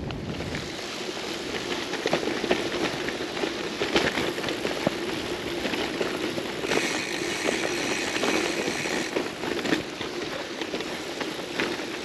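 Gravel-bike tyres rolling over a gravel track, a steady crunching crackle of small stones with a faint hum, and a brighter hiss for a couple of seconds about seven seconds in.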